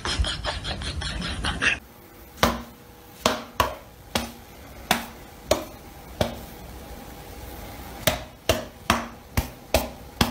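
A cat swatting with its paw, giving about a dozen sharp, irregularly spaced slaps or knocks, each ringing briefly. Before them, a busy crackling clatter cuts off abruptly about two seconds in.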